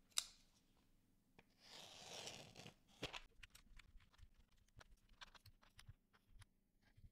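A short rustling scrape of plastic keycap trays being handled, then a run of small sharp clicks as GMK keycaps are pressed one by one onto Cherry MX Black switch stems.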